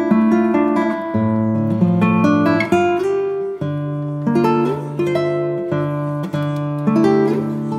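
Background music: acoustic guitar playing plucked notes and chords.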